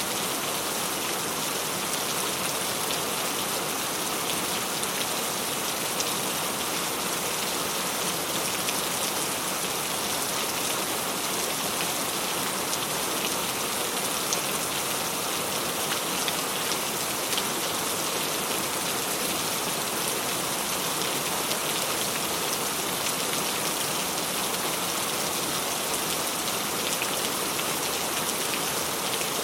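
Steady rain falling: an even hiss with many small drops ticking close by, unchanging throughout.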